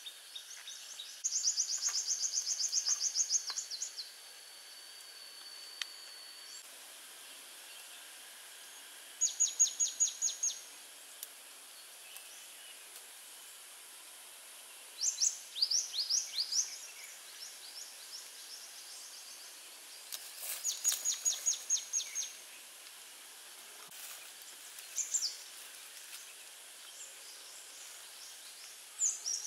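A bird singing a fast, high trill lasting one to two seconds, repeated about every five or six seconds, over a steady background hiss. A thin, steady high whine is heard through the first few seconds.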